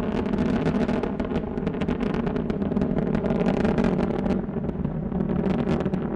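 Space Shuttle Endeavour's twin solid rocket boosters and three main engines firing during ascent: a loud, steady low rumble full of crackle.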